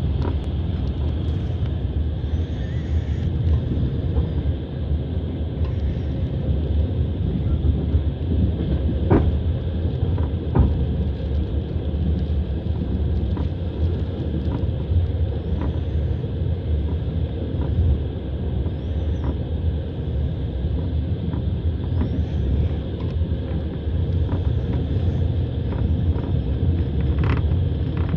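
Moving passenger train heard from inside the carriage: a steady low rumble of the running gear on the track, with a few sharp wheel clicks over the rails, two close together partway through and one near the end.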